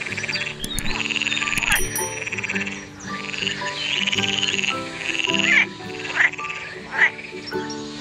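Frog croaking: a run of rattling calls, each just under a second long, repeated several times, with shorter, sharper calls in the second half.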